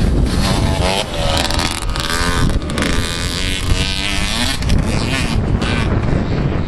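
Motocross bike engine revving as the bike rides past and away over the jumps, its pitch rising and falling several times before fading, with wind rumbling on the microphone.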